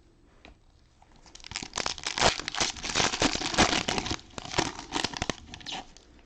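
Cellophane trading-card pack wrappers being torn open and crumpled: a dense crinkling with quick sharp crackles that starts about a second and a half in and stops near the end.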